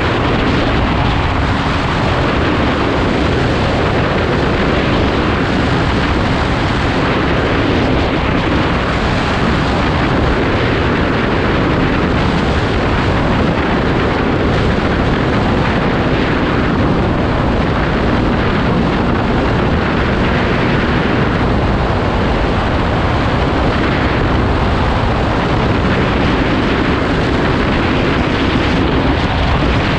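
Kawasaki Z250's parallel-twin engine running steadily at cruising speed, its note buried under heavy wind rush on the microphone.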